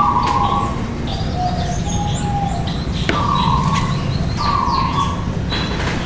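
Mixed calls of captive aviary birds: repeated flat whistled notes about half a second long, with short high chirps between them, over a steady low background noise.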